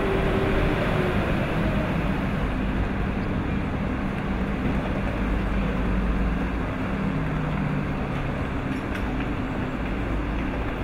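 VR Sm5 electric commuter train coming to a stop, its motor whine falling in pitch in the first second, then standing at the platform with a steady hum of running onboard equipment.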